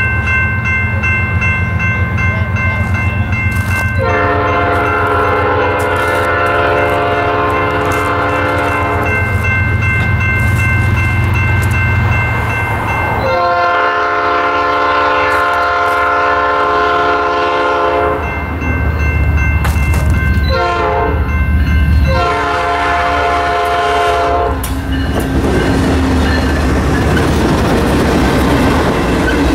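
Norfolk Southern diesel locomotive's air horn blowing the grade-crossing signal as it approaches: two long blasts, a short one, and a final long one, over the steady ringing of the crossing bell. Near the end the locomotive passes close by with engine rumble and wheel-on-rail noise.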